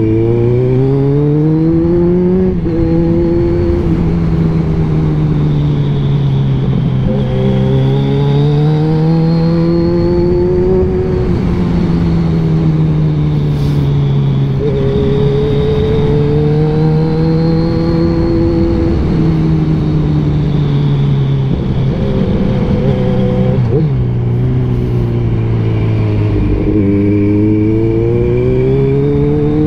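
Kawasaki Z1000's inline-four engine pulling through an aftermarket exhaust on a ride. The note rises and falls in pitch every few seconds as the throttle opens and eases, over steady wind and road noise.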